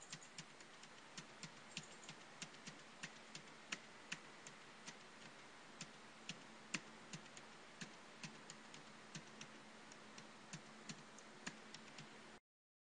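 Faint keystrokes on a computer keyboard: short, uneven clicks about two to three a second over a low hiss, cutting off to dead silence near the end.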